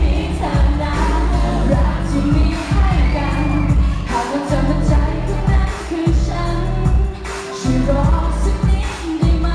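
A woman singing a pop song live into a handheld microphone over an amplified backing track with a strong bass beat, heard through a PA system.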